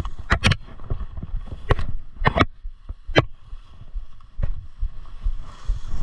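Footsteps and brush swishing through cover in a series of short crunches, about six in all, over a low rumble.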